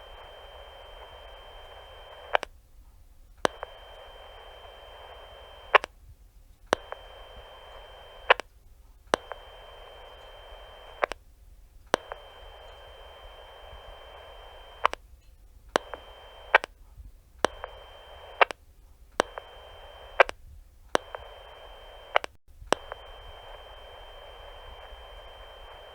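Walkie-talkie static hiss with a steady high whistle, cut off and back on about nine times as the talk button is pressed and released. Each switch is marked by a sharp click.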